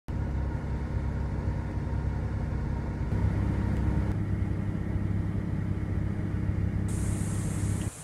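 Steady low rumble of a car heard from inside its cabin. It shifts in character about three and four seconds in and cuts off abruptly near the end.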